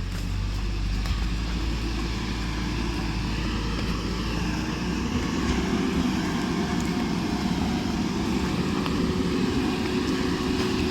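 Engine of road-construction machinery running steadily; about five seconds in its low drone gives way to a higher, stronger engine note.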